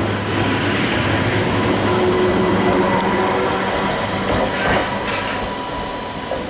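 Class 230 D-Train diesel-electric multiple unit (rebuilt London Underground D Stock) pulling away and receding down the line. Its running noise fades gradually under a steady whine, with a few wheel clicks over the rail joints about four to five seconds in.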